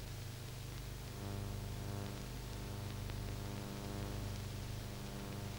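Steady low electrical hum with faint hiss on the old soundtrack, unchanging, with nothing else heard.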